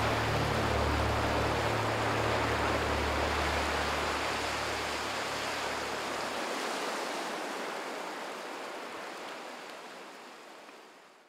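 A steady rushing hiss with a low, steady drone beneath it that stops about six seconds in; the whole sound then fades out slowly to nothing.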